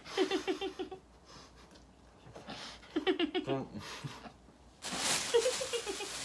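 Muffled giggling through mouths stuffed with marshmallows, in short runs of rapid laughs. About five seconds in, a louder hiss of noise comes in as the marshmallows are spat into a plastic bag, with more laughter over it.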